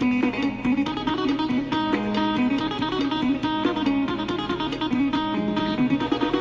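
Background music: acoustic guitar playing quick, plucked notes in a flamenco-like style.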